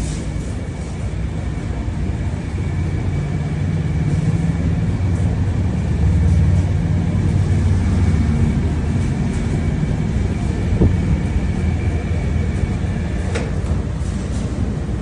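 Commercial 30 kg washing machine running: a steady low hum of the drum and motor that swells a few seconds in, with a thin steady whine above it and one sharp click near the end.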